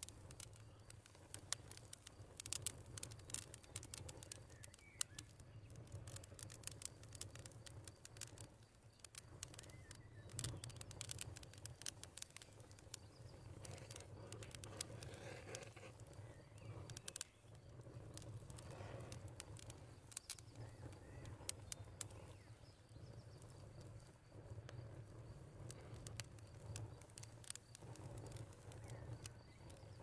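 Faint outdoor nature ambience: a low steady rumble with many scattered light ticks and crackles.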